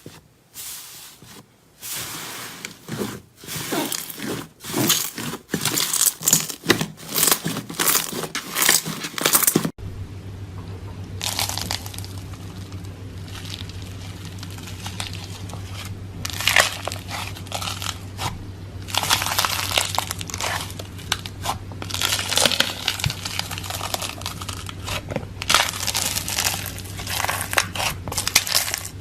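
Close-up crackling and crunching of a crunchy material being crushed. For about ten seconds it comes as quick, sharp crackles. Then a cut brings a steady low hum under repeated bursts of crunching.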